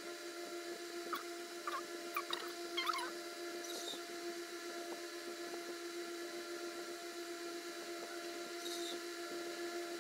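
A small electric motor hums steadily at one pitch. A few short, high chirps come about one to three seconds in.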